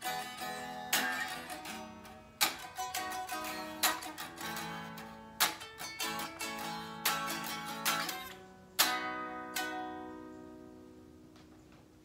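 Electric guitar played solo, a run of plucked chords and single notes. Near the end a last chord is struck and left to ring until it fades out.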